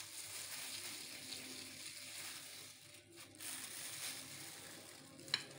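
Disposable plastic gloves crinkling faintly as hands squeeze and roll minced beef into meatballs, with one sharp click near the end.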